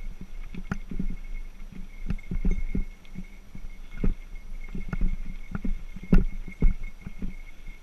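Mountain bike riding over rocky singletrack: irregular knocks and thumps as the wheels hit rocks and the bike and camera jolt, the hardest about four seconds and six seconds in, over a thin steady high buzz.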